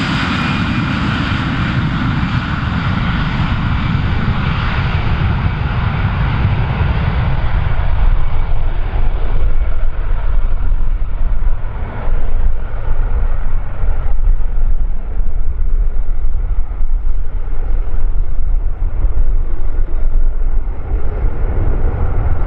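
Airbus A320 jet engines at takeoff thrust as the airliner departs. The high-pitched part of the jet noise slowly fades, while a low, uneven rumble grows louder from about a third of the way in.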